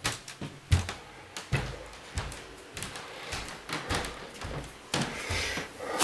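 Belongings being handled and shifted about: a string of knocks, bumps and clicks, with rustling near the end.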